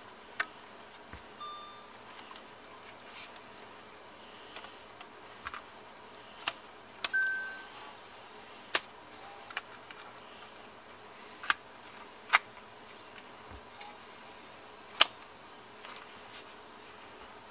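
Canon ZR80 MiniDV camcorder being operated by hand: about eight sharp plastic clicks from its buttons and latches, two short electronic beeps from the camera, and a brief mechanical whir about seven seconds in as the motorised tape compartment opens.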